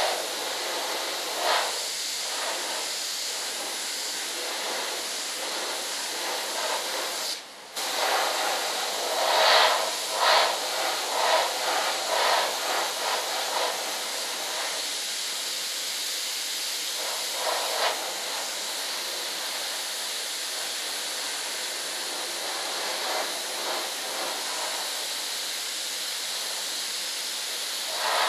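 Compressed-air paint spray gun hissing steadily as it sprays paint onto the model. The hiss stops briefly about seven and a half seconds in, then comes back and swells unevenly for a few seconds.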